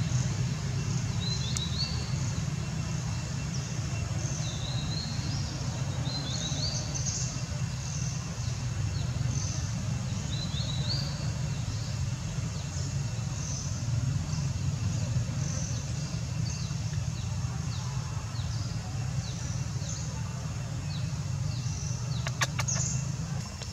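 Outdoor ambience: birds chirping high and short, in little rising phrases repeated every few seconds, over a steady low rumble. A few clicks sound near the end.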